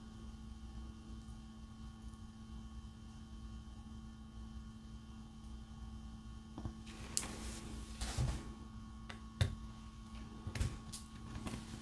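Faint steady hum. From about seven seconds in come a handful of short clicks and light knocks as a hand handles diamond-painting tools and drills on the canvas.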